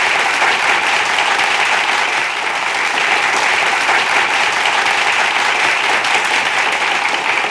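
Audience applauding, a dense, even clapping held at a steady level.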